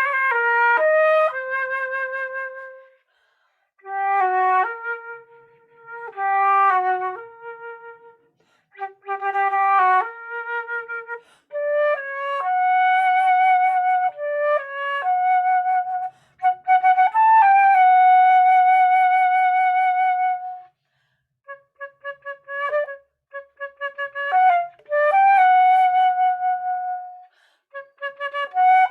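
A solo flute playing a melody in short phrases of quick and held notes, with brief pauses between the phrases.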